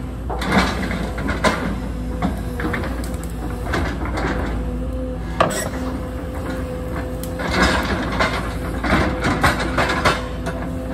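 Case hydraulic excavator at work: its diesel engine running steadily with a constant whine, while the bucket knocks and clanks irregularly as it digs and scrapes soil.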